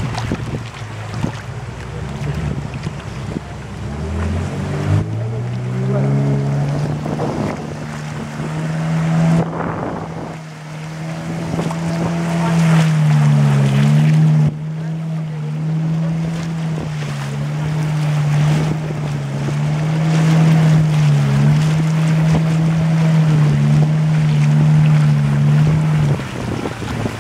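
Motorboat engine speeding up, its pitch rising about four seconds in, then running steadily at speed, with water rushing past the hull and wind on the microphone.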